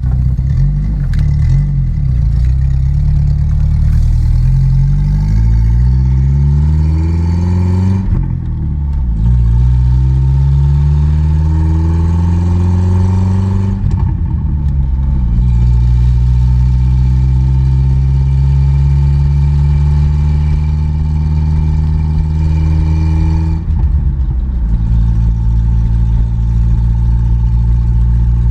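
A 1982 Datsun wagon's four-cylinder engine pulls up through the gears on a test drive, rising in pitch and breaking for a gear change about 8 and 14 seconds in. It then runs at a steady speed, with a short let-off near the end before settling again.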